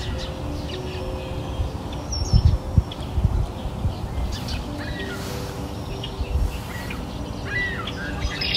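Birds chirping over soft, held music notes. There are short chirps about five seconds in and again near the end, and a few low thumps about two to three seconds in.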